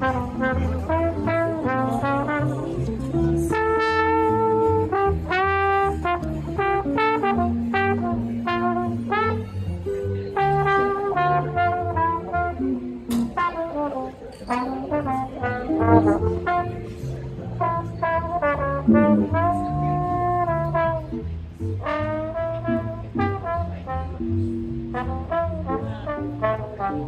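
Small acoustic jazz band playing: a trombone carries the melody, with held notes that slide in pitch, over a plucked upright bass line and guitar.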